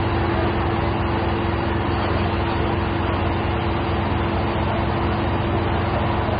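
Steady drone of an idling engine, an unchanging hum under a layer of outdoor noise.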